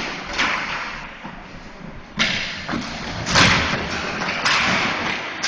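Sharp knocks of ball hockey sticks and ball, about five in a few seconds with the loudest just past the middle, echoing through a large gymnasium.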